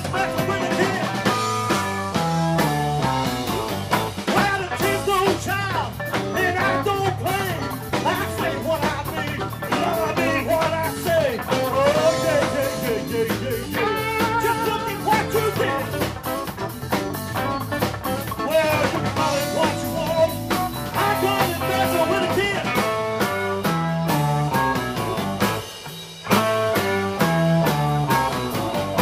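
Live blues band playing: electric guitars, bass and drum kit, with bending lead notes and a walking bass line.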